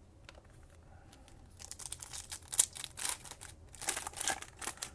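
Trading cards and their packaging being handled: a run of crisp, papery rustles and crinkles over the last three seconds or so.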